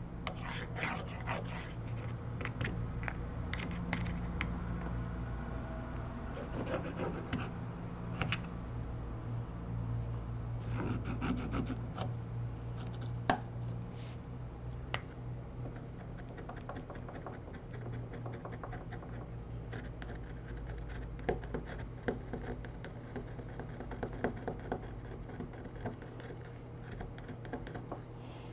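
Irregular small clicks, taps and scratches of tools and parts being handled while a smartphone is worked on at the bench, over a steady low electrical hum.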